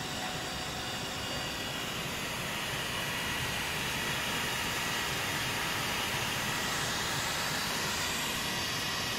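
Automatic hot-air welding machine for PVC tarpaulin running, its blower giving a steady rush of hot air with a faint high whine.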